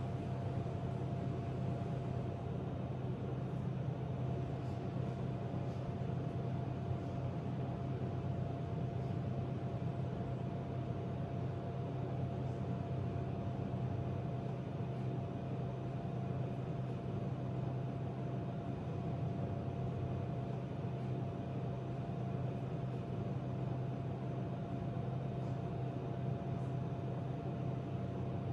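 Steady low mechanical hum with a thin, high steady whine above it, unchanging throughout, like a building's ventilation or an appliance running.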